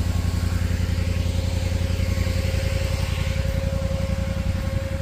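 Engine of a chain trencher running steadily at idle, a low rapid pulsing with a steady hum above it.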